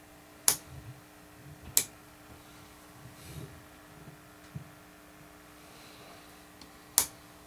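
Three sharp clicks of a toggle switch on the amplifier chassis being flipped, two close together near the start and one near the end, over a faint steady hum.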